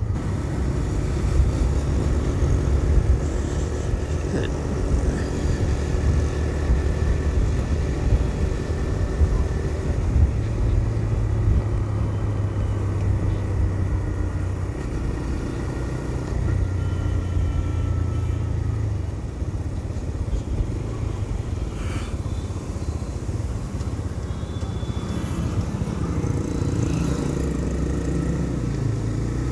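TVS Raider 125's single-cylinder engine running under way at road speed. Its low drone shifts a few times with the throttle, mixed with wind and road noise.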